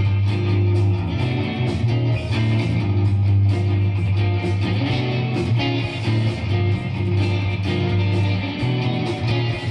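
Electric guitar picking through a chord progression, the chords changing every second or two over a sustained low note.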